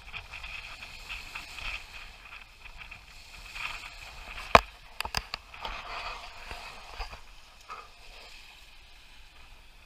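Small loch waves washing and lapping on a pebble shore in uneven swells, with a few sharp knocks about halfway through.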